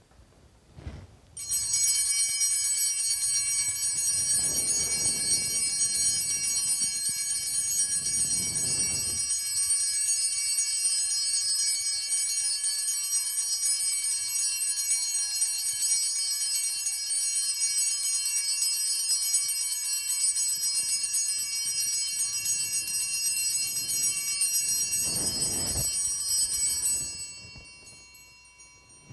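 Altar bells rung continuously for about 25 seconds, starting about a second in and dying away near the end: the signal of the blessing with the Blessed Sacrament in the monstrance at Benediction.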